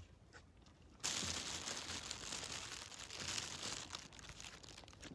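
Plastic bag crinkling and rustling close to the microphone as it is handled, starting about a second in and stopping shortly before the end.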